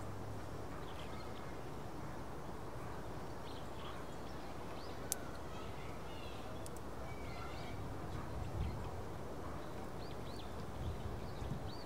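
Outdoor ambience of small birds chirping now and then, short high calls scattered over a steady background hiss. A single sharp click about five seconds in.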